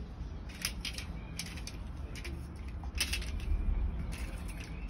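Scattered light clicks and taps of a small plastic toy tractor being handled and knocked on a tiled floor, over a low rumble.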